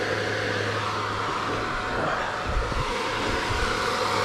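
2023 Kawasaki KX450SR dirt bike stopped with its engine running and its radiator cooling fan whirring steadily, keeping the hot engine's temperature down.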